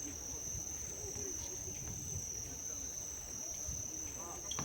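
Steady high-pitched insect trilling with no breaks, over faint distant voices and low background rumble.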